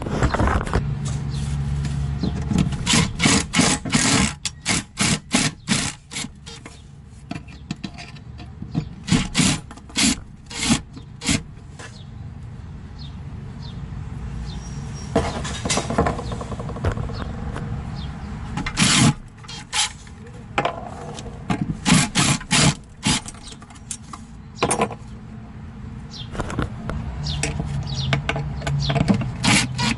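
Makita impact driver backing out the screws of cabinet door hardware in repeated short bursts, with sharp clicks and knocks between them.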